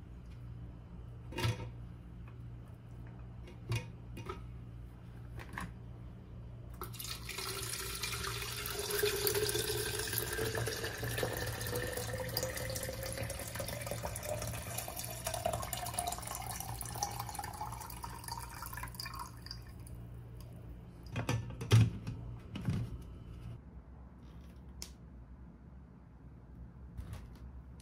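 Water running from a tap into a container for about twelve seconds, the pitch rising steadily as the container fills. Scattered clicks of objects being handled come before it, and a few sharp knocks come after it, the loudest a little past the twenty-second mark.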